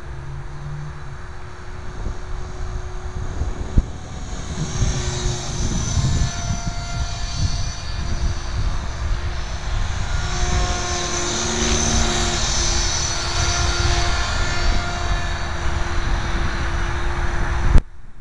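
Align T-Rex 500 electric radio-controlled helicopter in flight: a steady whine from its motor and rotor blades that grows louder from about four seconds in as it comes closer, over wind rumbling on the microphone. Near the end the sound stops abruptly with a sharp click.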